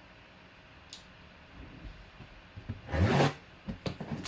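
Packaging of a boxed jersey being torn open: a short, loud rip or scrape about three seconds in, followed by a few light clicks and knocks of handling.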